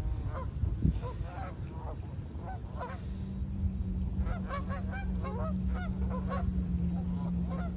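Canada geese honking, many short calls overlapping throughout. A steady low hum joins in about three seconds in.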